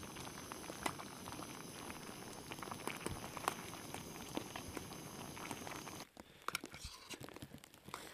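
Pot of wonton noodles boiling on a camp stove: a steady hiss with scattered small pops and clicks. It cuts off abruptly about six seconds in, leaving only faint clicks.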